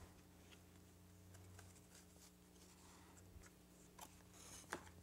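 Near silence: a faint steady hum, with a couple of faint clicks near the end as the cardstock pages of a small accordion book are unfolded by hand.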